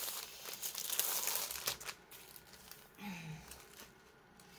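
Plastic packaging crinkling and crackling as a rolled diamond painting canvas in its clear plastic wrap is handled, busiest in the first two seconds and then much quieter.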